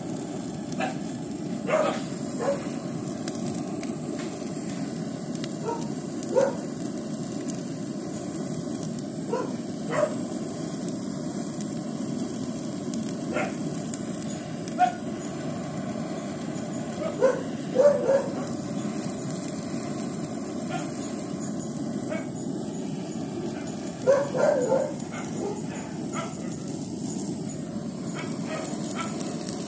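Handheld butane blow torch burning with a steady hiss as its flame is played over a chicken carcass. Over the hiss come a dozen or so short pitched sounds, with a cluster about two-thirds of the way through and another near the end.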